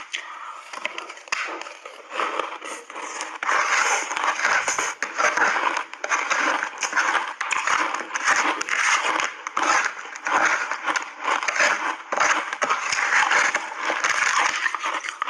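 Close-up crunching and chewing of hard frozen block ice coated in milk powder, a dense run of cracks and crackles that gets louder and continuous about three seconds in.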